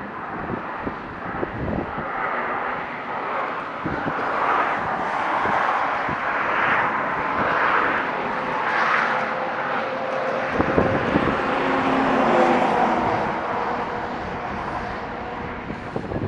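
A steady rushing noise that swells over several seconds and then eases off, with a faint engine-like hum in the second half.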